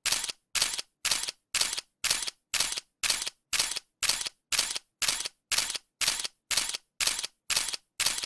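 Camera shutter click sound effect repeating steadily, about two and a half crisp shutter snaps a second, each a quick double click.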